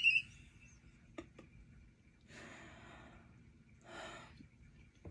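A woman's high-pitched cry breaking off at the very start, followed by two heavy breathy sighs, about two and four seconds in.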